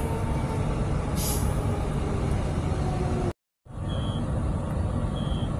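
Inside an electric multiple-unit passenger train, a steady low rumble as the train runs, with short hisses of air near the start and about a second in. The sound cuts out briefly a little past halfway, and three faint short high beeps follow.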